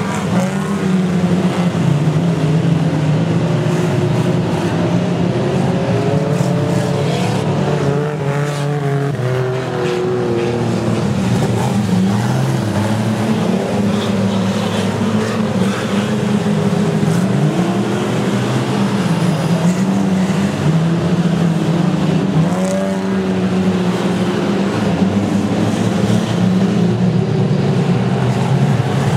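A pack of speedway stockcars racing: several race engines running together at high revs, loud and continuous, their pitch rising and falling as the cars lift off and accelerate through the turns.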